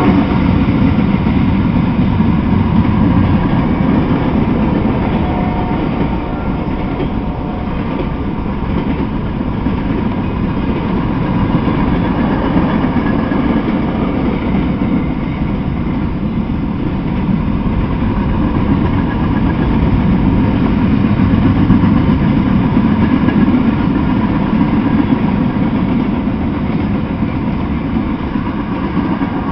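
Freight train passing: a steady rumble and rattle of tank cars and autorack cars rolling over the rails, with no let-up.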